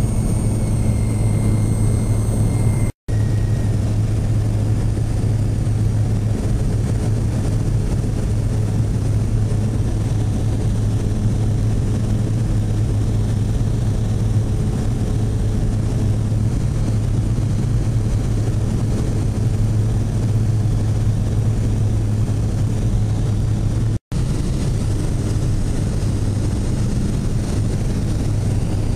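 Steady drone of a small single-engine propeller plane heard from inside its cabin while it takes off and climbs: a deep, even hum with engine noise over it, and a thin high whine during the first few seconds. The drone breaks off twice for an instant, about three seconds in and again about five seconds before the end.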